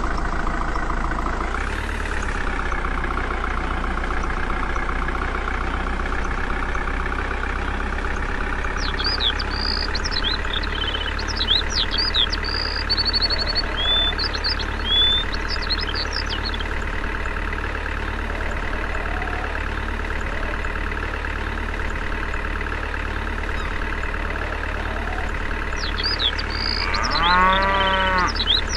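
Tractor engine idling steadily, revving up briefly about two seconds in. Birds chirp over it through the middle and again near the end, and a cow moos once near the end.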